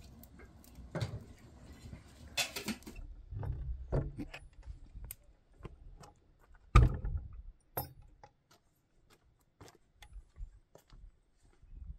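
Scattered clicks, knocks and light handling sounds, with one loud low thump about seven seconds in, fitting a wooden door shutting.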